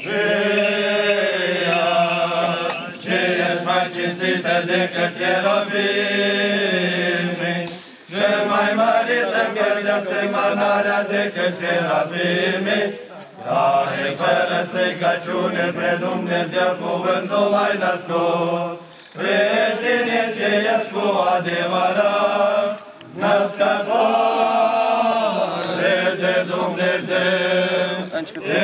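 Orthodox liturgical chant for the dead, sung in long phrases over a steady low held note, with short pauses between phrases every few seconds.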